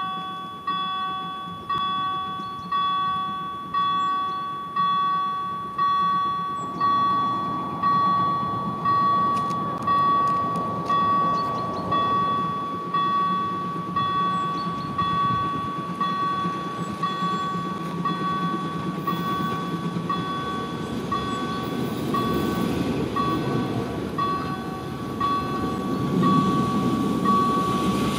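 Level-crossing warning bell striking about once a second, each stroke ringing out, while a narrow-gauge steam locomotive approaches, its rumble growing louder from about a quarter of the way in.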